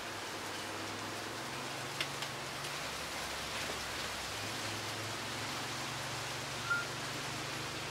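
Wind rustling through bush foliage, palm fronds and bamboo: a steady hiss of moving leaves, with a low steady hum beneath. A small click about two seconds in and a brief high chirp near the end.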